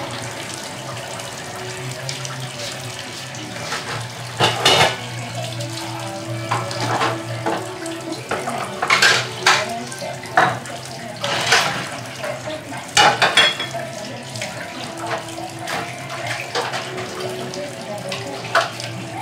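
Kitchen sink tap running, with dishes and cutlery clinking and knocking at irregular moments over a steady low hum.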